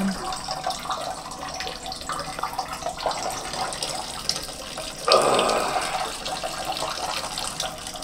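A man urinating into a toilet: a steady stream splashing into the bowl water, turning louder and fuller about five seconds in.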